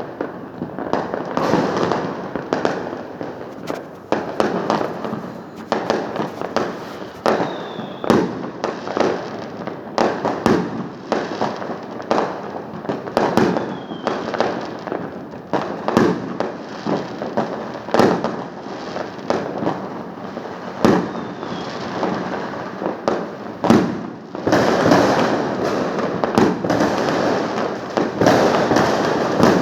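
Fireworks going off: a continuous, irregular run of bangs and crackles that grows denser and louder about 25 seconds in.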